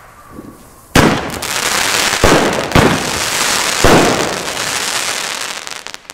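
Comet Future Rockets crackling bomb-tube shells bursting in the air. About four sharp bangs come in the first four seconds, and each is followed by dense crackling from the crackling stars, which carries on until near the end.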